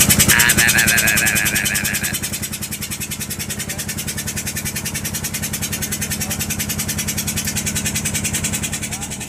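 Boat's engine running steadily with a fast, even knocking beat while the purse-seine net is hauled in. A higher-pitched sound lies over it for the first two seconds.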